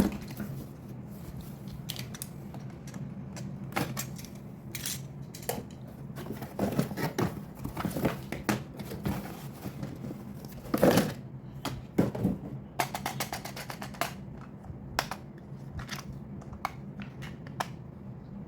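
Hands handling toy packaging and plastic parts: irregular clicks, taps and rustles, with a quick run of rattling clicks about two-thirds of the way through, over a low steady hum.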